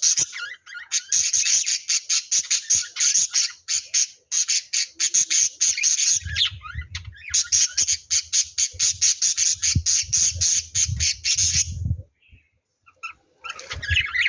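Lovebirds giving long runs of rapid, harsh, squawking chatter, about six or seven calls a second, broken by short pauses and a longer lull near the end. A low rumble runs beneath the middle stretch.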